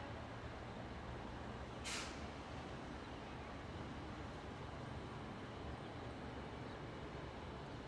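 A steady low engine hum from an idling vehicle, with one short hiss of released air about two seconds in.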